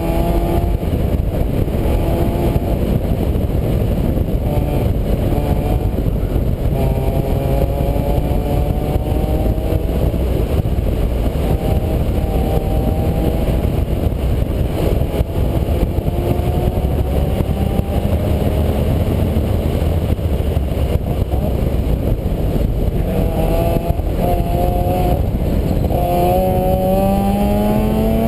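A vehicle engine under way, its pitch climbing again and again and dropping back between climbs, over a heavy, steady low rumble.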